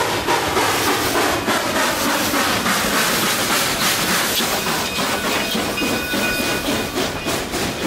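Steam train running: a steady hiss of steam over clattering on the rails, with faint high steady tones coming in after about five seconds.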